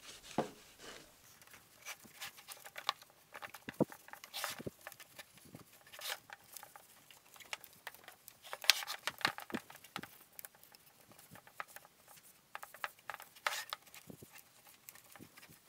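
Cotton cloth rubbing over a waxed wooden chair to buff the wax to a sheen: irregular swishes and rustles, with a few light knocks of the chair on the wooden workbench.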